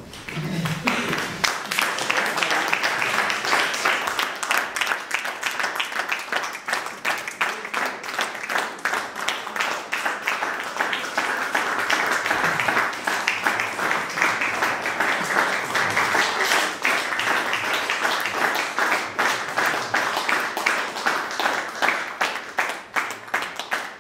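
An audience applauding: dense, sustained clapping that starts suddenly and thins into fewer, more separate claps near the end.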